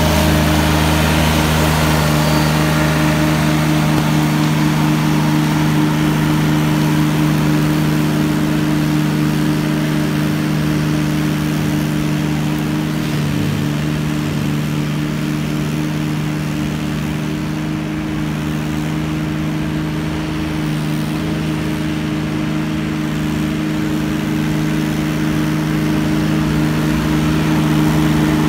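McConnel Robocut tracked, remote-controlled flail mower running steadily at working speed as it cuts rough grass and scrub, a constant engine and flail-rotor hum. It grows a little quieter in the middle as the machine moves away, then louder again near the end as it comes back.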